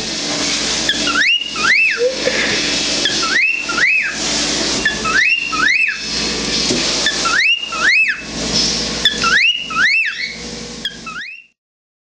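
Male cockatiel wolf-whistling again and again: each time a pair of rising-then-falling whistles, repeated about every two seconds, six times over a steady hiss, then cut off suddenly near the end.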